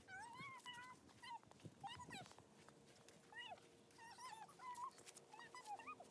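Dog whining: a string of about ten short, faint, high-pitched whimpers, each rising and falling in pitch.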